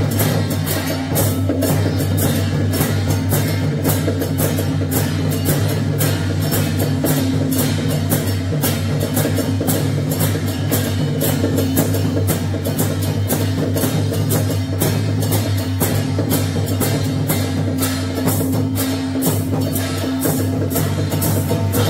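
Taiwanese temple procession percussion: drum, gongs and cymbals struck in rapid, steady strokes over a steady low ringing. It is the beat that accompanies a spirit medium in trance.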